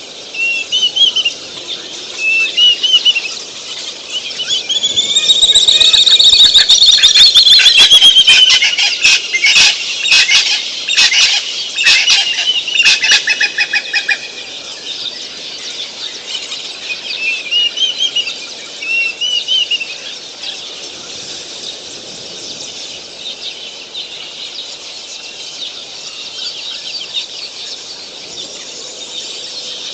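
Birds calling in the open bush: short arched chirps repeat about once a second over a steady high hiss. About five seconds in comes a louder drawn-out call, followed by a run of sharp clicks lasting several seconds.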